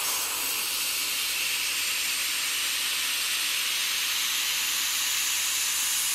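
xTool MetalFab handheld fiber laser welder running a bead along a 12-gauge mild steel corner joint, giving a steady, even hiss.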